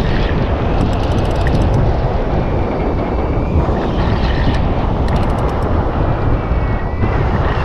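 Wind buffeting the microphone: a loud, steady rushing rumble, with a thin high whistle that comes and goes a couple of times.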